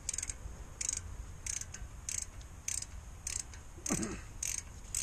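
Small hand ratchet clicking in short bursts, about one and a half times a second, as its handle is swung back and forth to undo a Torx screw at the rear wheel hub.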